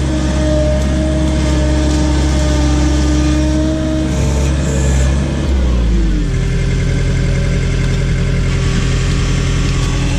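Case / Davis D100 backhoe engine running with a steady whine over it. About halfway through, the engine speed drops and the whine falls away, and it settles to a lower, steady run.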